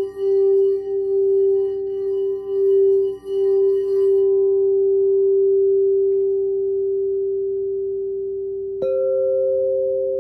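Crystal singing bowl ringing a steady low tone that pulses and wavers for the first few seconds and then slowly fades. Near the end a mallet strikes another bowl, which rings out with a higher tone.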